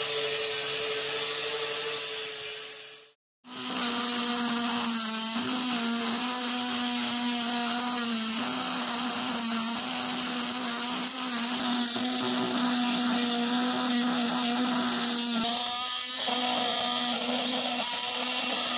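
Angle grinder running against the steel blade of the tobacco cutter held in a vise, cutting off suddenly about three seconds in. Then a small handheld rotary tool runs steadily at a lower pitch, drilling out rivet heads on the cutter's cast-iron parts.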